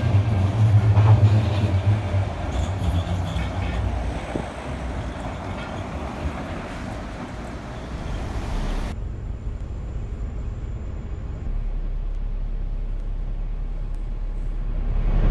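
Tram running, with a strong low hum that fades away over the first few seconds. About nine seconds in, the sound changes abruptly to a quieter, steady low rumble that swells near the end.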